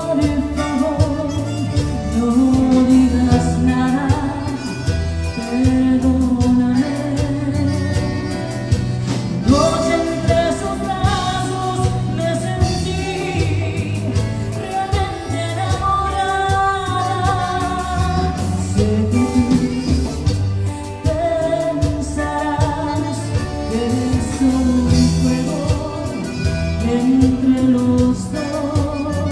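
Live Tejano band playing a song, a woman singing the lead over button accordion, electric guitar, bass guitar and drum kit with a steady beat.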